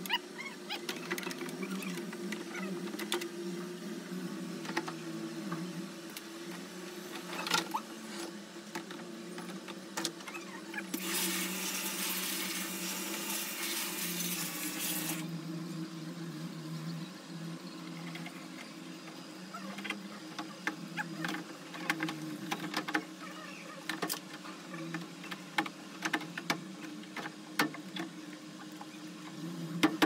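Plastic cabinet parts of a top-loading washing machine being handled and unclipped: scattered clicks and knocks over a steady low hum, with a hiss lasting about four seconds near the middle.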